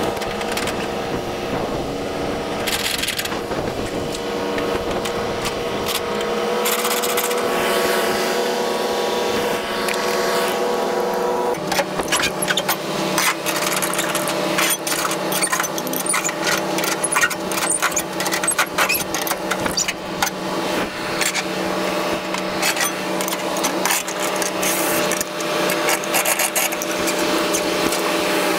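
Truck engine running steadily, its pitch shifting to a new steady note about twelve seconds in, with rapid clicking and rattling over it from then on.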